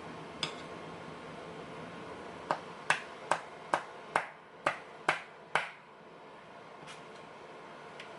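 Small metal lock parts clicking as an American Lock 5200 padlock core and its pins are handled: a single sharp click, then a quick run of eight sharp clicks at about two or three a second, and two faint clicks near the end.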